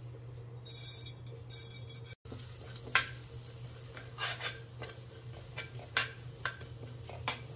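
Cumin seeds frying in hot oil in a small kadhai with a faint sizzle, while a steel spoon stirs them, scraping and clicking against the pan several times from about three seconds in.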